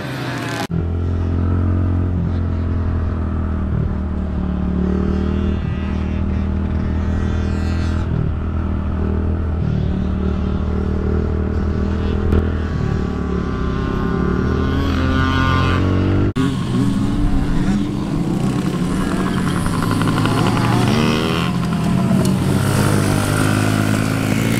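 Pit bike engine running as it is ridden, its note mostly steady with some rises and falls. The sound changes abruptly about a second in and again about two-thirds of the way through.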